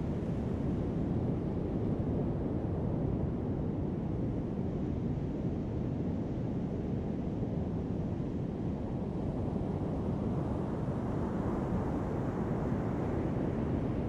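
Heavy ocean surf breaking on a sand beach: a steady low rumble of waves, with a brighter surge of a breaking wave about ten seconds in.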